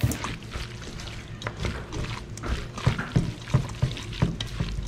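Wet squelching and slapping of a gloved hand tossing raw anchovies and vegetables in a thick chili dressing in a stainless steel bowl, with many short irregular strokes.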